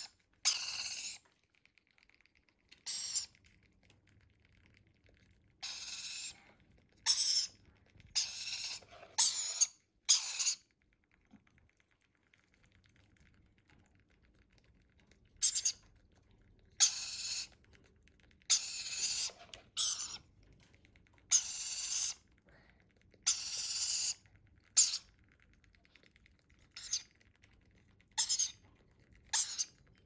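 Rainbow lorikeet chicks making repeated short, high-pitched begging calls as they are spoon-fed formula, with a pause of a few seconds a little before the middle.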